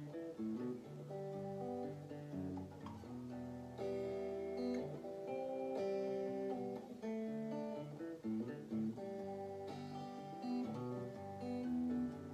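Electric guitar played clean, picking notes and chords in a steady, changing melodic line.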